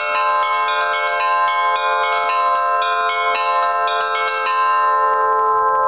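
Russian-style church bells from the middle row, rung in a quick even pattern of about four to five strokes a second. The strokes stop about four and a half seconds in and the bells ring on.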